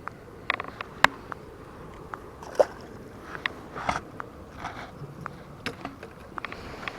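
Irregular clicks, taps and scrapes, with a few sharper knocks, over a steady low background.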